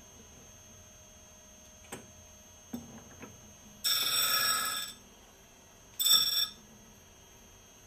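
Tool and cutter grinder's wheel grinding an end mill's corner radius: two high-pitched grinding contacts, the first about a second long, the second about half as long, as the tool is swung around against the wheel. A few light clicks from the grinder's fixture come before them.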